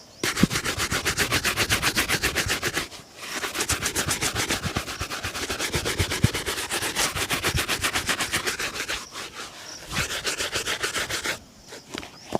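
A shoe being buffed during a shoe shine with rapid back-and-forth rubbing strokes, about eight a second. The strokes come in runs with brief pauses about three and nine seconds in, then stop shortly before the end.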